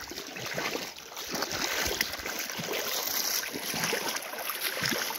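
Shallow river water splashing and sloshing, with many small, irregular splashes over a steady rush.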